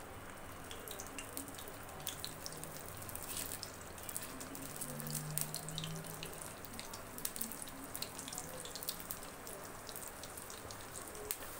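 Mutton keema cutlets shallow-frying in hot oil in a kadai, the oil sizzling steadily with many small scattered crackles and pops.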